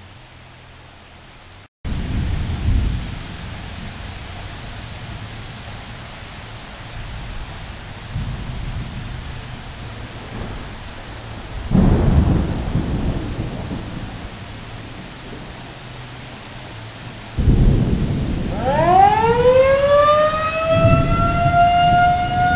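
Heavy rain pouring, with low rumbles of thunder, the loudest about halfway and again near the end. Near the end an outdoor warning siren winds up, its pitch rising and then holding steady as it rotates.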